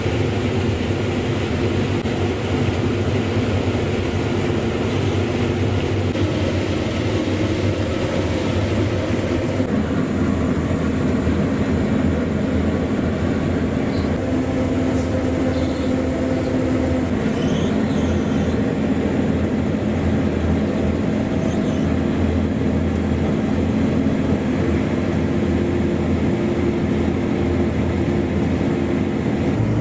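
Combine harvester running steadily under load while harvesting corn, a heavy engine hum mixed with the rush of the threshing machinery. The higher hiss drops away about ten seconds in.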